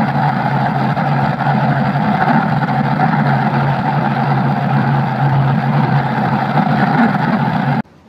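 Engine sound effect: a motor running steadily at an even pitch, cutting off suddenly near the end.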